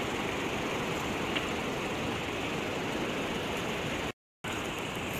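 Steady rush of turbulent river water pouring through below a dam, broken by a brief gap of silence a little after four seconds.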